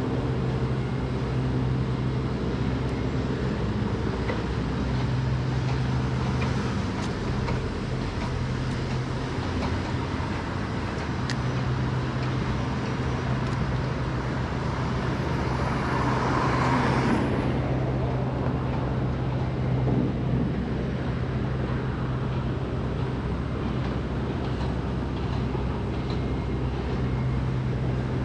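City street traffic: a steady low engine hum under the noise of passing cars, with one louder swell of noise a little past the middle.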